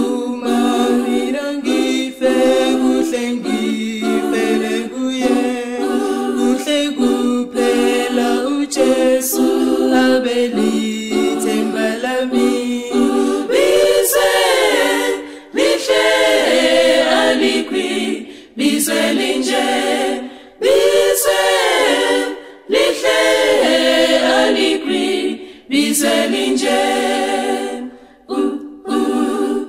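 Unaccompanied vocal group singing an isiNdebele hymn in close multi-part harmony. The sustained chords change phrase by phrase, with brief pauses for breath between phrases.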